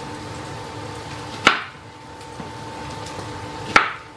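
Kitchen knife cutting through an onion and striking a wooden cutting board twice, two sharp chops a couple of seconds apart, over a steady faint hum.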